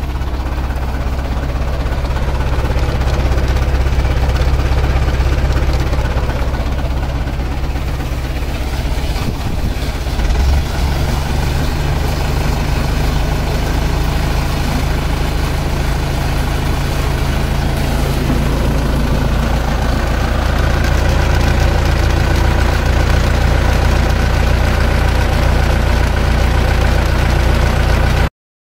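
Tractor engine running steadily, driving a PTO-mounted self-priming roller water pump as it pumps water. The sound stops abruptly near the end.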